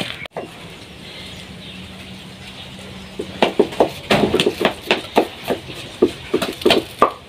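Knife slicing onion held in the hand, the pieces dropping with light clinks into an empty stainless steel pot: irregular short clicks a few times a second, starting about three seconds in after a stretch of steady low background hum.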